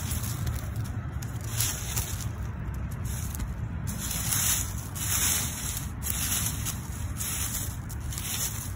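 Dry fallen leaves rustling and crackling in short bursts as a hand brushes them aside, over a steady low rumble.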